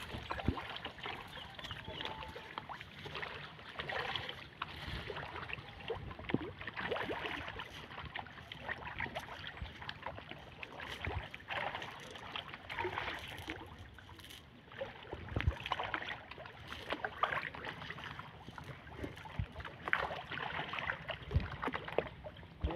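Irregular water splashing and sloshing at the edge of a muddy pond, with scattered small knocks and some wind on the microphone.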